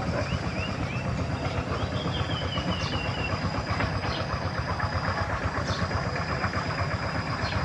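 Steady low rumble of background noise with a thin high steady tone over it, and a few faint high small-bird chirps: a short run of notes about half a second in, and a falling series of notes about two to three seconds in.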